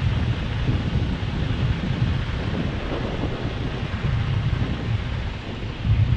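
Semi truck's diesel engine idling with the truck standing still, a steady low rumble heard from inside the cab.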